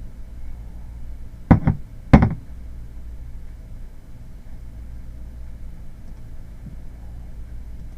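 Three sharp knocks in quick succession about a second and a half in, the last the loudest, over a steady low hum.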